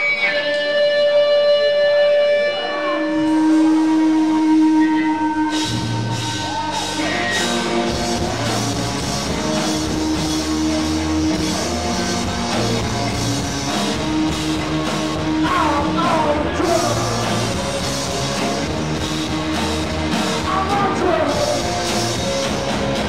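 Live punk rock band playing loud: electric guitar holding long, ringing notes, then the full band with drums crashes in about six seconds in and keeps a driving beat.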